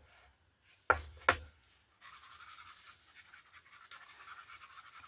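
Orbital sander with 120-grit paper running on the edge of a hardwood cutting board, starting about two seconds in: a steady, thin, high hiss with no low end.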